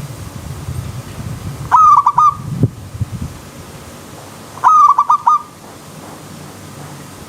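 Zebra dove (perkutut) cooing: two short phrases of four or five quick, stuttering notes, about three seconds apart, over a faint steady background.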